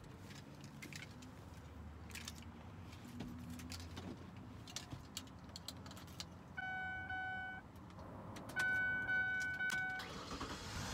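Car keys jangling and clicking at the ignition, followed near the end by two steady electronic warning tones from the car's dashboard, one about a second long and a second somewhat longer. The engine does not yet start.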